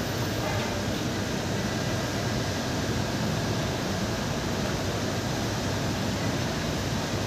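A steady, even rushing noise with no distinct chewing or lapping sounds standing out.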